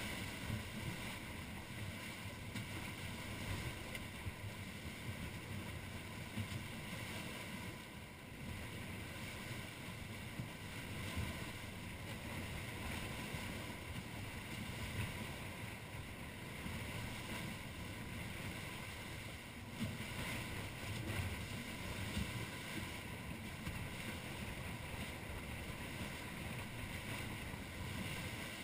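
Steady rush of wind and water around a Wharram Tiki 38 catamaran sailing through choppy, whitecapped sea, with wind buffeting the microphone.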